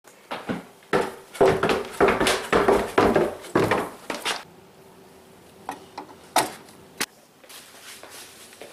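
Footsteps going down a flight of stairs: about eight heavy steps roughly half a second apart, then a few lighter knocks and taps, over a faint steady hum.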